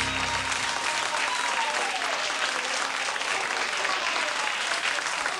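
Studio audience applauding, with some voices calling out. The last low sustained note of the music cuts off about half a second in.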